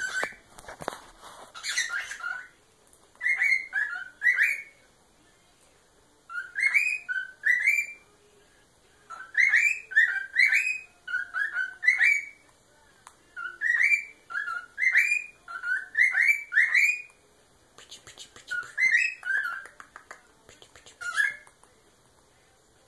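A cockatiel singing: phrases of three to five short whistled notes that swoop up and down, repeated about seven times with short pauses between them. A few clattering knocks come near the start.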